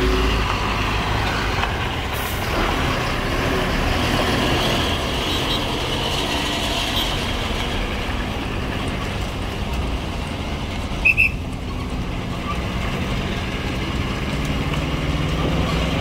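Truck running on the road, a steady engine and road rumble with hiss. Two short, high beeps close together about eleven seconds in.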